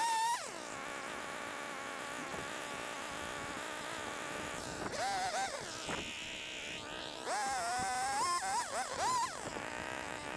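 Small two-stroke engine of a handheld gas cutting tool idling, revved up in short bursts: briefly at the start, again about five seconds in, and for a longer stretch from about seven to nine seconds with the throttle fluttering.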